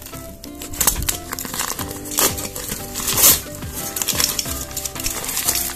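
Plastic parcel wrapping crinkling and tearing in several sudden bursts as it is pulled off a cardboard box, over background music.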